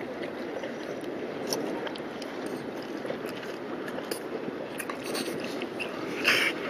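French bulldog licking its nose and lips after drinking, with small wet mouth clicks over steady background noise; near the end it starts panting in loud, raspy breaths.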